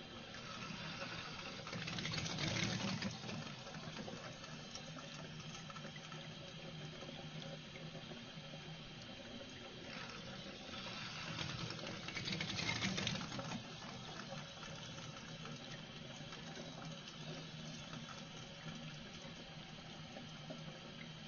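Faucet running with a weak, poor flow of water, trickling steadily, with two stronger surges of flow, about two seconds in and again about eleven seconds in.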